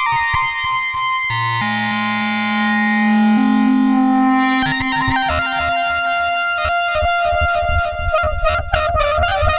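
Behringer Odyssey analog synthesizer playing a held low, buzzy note whose bright top fades away and which steps up once in pitch. From about five seconds in it moves into a faster run of rapidly repeated notes.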